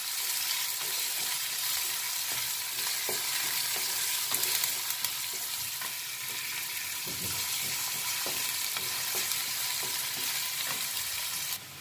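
Chopped onions sizzling in hot oil in a metal kadai, lightly frying while a flat spatula stirs them, scraping and knocking against the pan now and then. The sizzle cuts off suddenly just before the end.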